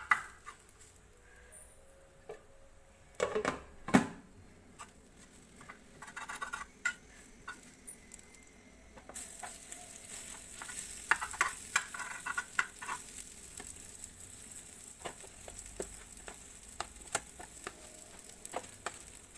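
Spatula scraping and tapping on a tawa as an egg omelet is cut into pieces, with scattered clicks and knocks. A steady sizzle comes in about halfway through.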